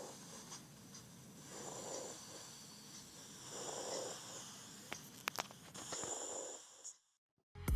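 Normal vesicular breath sounds (lung murmur) as heard with a stethoscope over the chest: soft breathing swells about every two seconds. A few sharp clicks come about five seconds in, and loud electronic music cuts in at the very end.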